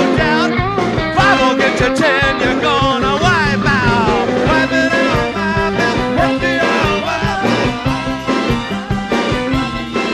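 Live rock band playing a surf-rock tune, with drums, bass and guitar under a lead vocal.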